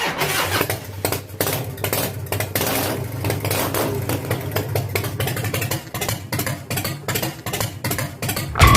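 Motorcycle engine running at idle, with a steady low rumble of quick uneven firing pulses.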